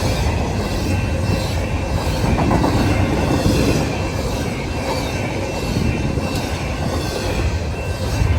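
Freight train passing at a level crossing: the cars roll by with a steady loud rumble and the clatter of wheels on the rails, with a faint continuous wheel squeal.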